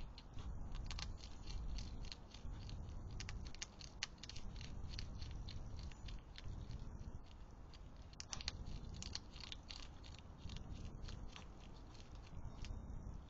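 European hedgehogs eating from a food dish: an irregular run of sharp crunches and chewing clicks over a steady low background hum.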